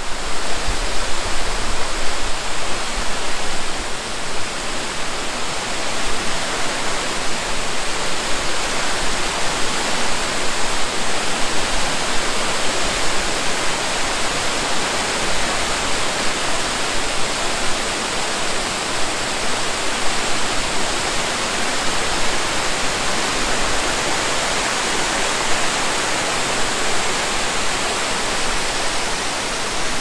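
Water pouring over a multi-tiered rock spillway waterfall close to the microphone: a loud, steady rush, a little louder for the first few seconds.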